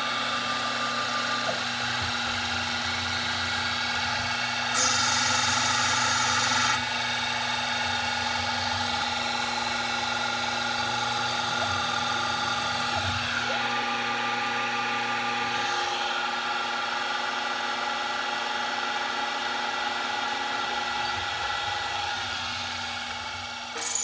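Milling machine running with a steady whine while an end mill machines an aluminium plate. About five seconds in, a louder hiss lasts for about two seconds.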